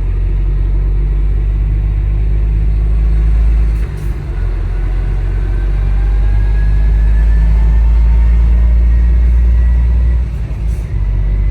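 Semi truck engine and road rumble heard from inside the cab while driving: a heavy, steady low drone that drops off briefly twice, about four seconds in and near the end, with a faint rising whine over it.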